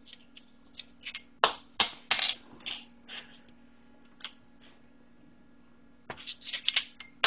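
A bottle cap being batted about by a cat, rattling and clicking: a quick flurry of sharp, ringing clicks about a second and a half in, a few single ticks after, and another flurry near the end.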